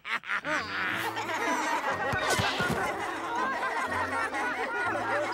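A group of cartoon children laughing together, many voices overlapping, over low background music.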